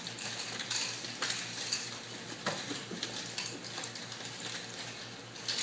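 Irregular sharp slaps and knocks of bare feet and bodies on a training mat as people grapple and throw each other, over a steady low hum.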